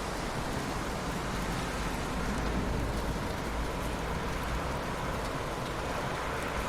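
Steady rain falling in an even hiss, with a low rumble underneath.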